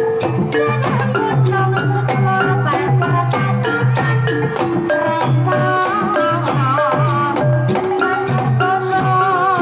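Banyumasan gamelan music: a kendang hand drum keeps the rhythm under bronze pot gongs and metallophones struck with mallets. A wavering melodic line comes in about halfway.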